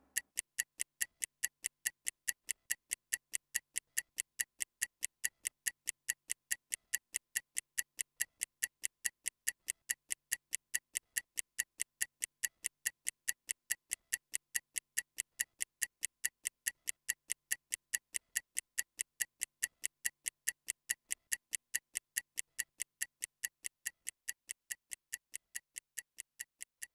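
Stopwatch ticking steadily at about three ticks a second: a timer sound effect counting down a 30-second rest between exercises.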